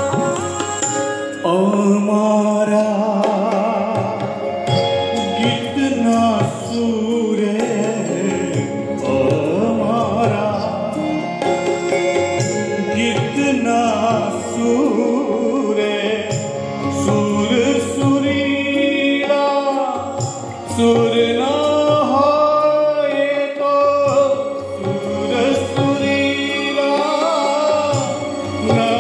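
Live song performance: a male singer with harmonium, acoustic guitar and keyboard accompaniment, playing continuously.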